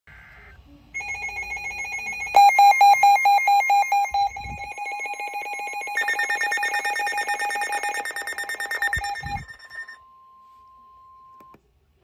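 Several NOAA weather alert radios, Midland and Eton, sounding their alarm beeps together for a severe thunderstorm warning. Rapid electronic beeping at about five beeps a second in overlapping pitches starts about a second in; a louder set joins at about two and a half seconds and a higher-pitched one at about six seconds, and all stop together at about nine and a half seconds. A faint steady tone follows for about a second and a half.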